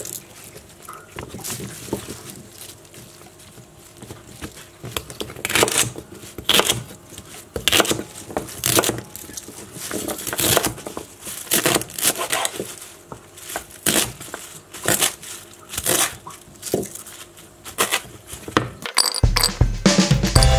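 Chef's knife chopping through celery stalks onto a wooden cutting board: a sharp crunch and knock about once a second. Music comes in near the end.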